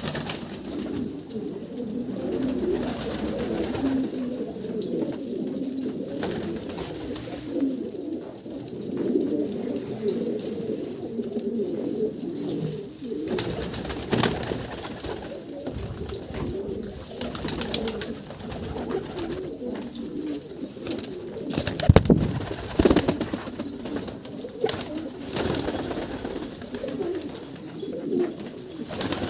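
Pigeons cooing continuously, several low warbling coos overlapping. A brief thump about three-quarters of the way through.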